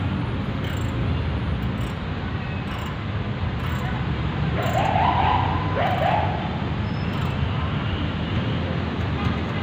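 Outdoor background of steady traffic rumble with distant voices, including two short calls about five and six seconds in.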